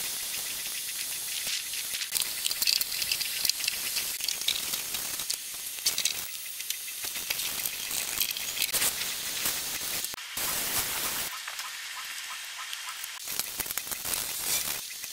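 Hand pump sprayer jetting foamy dish-soap water with a hiss and spatter, then a stiff brush scrubbing a tyre and wheel arch in quick scratchy strokes. A short, stronger burst of hiss comes about ten seconds in.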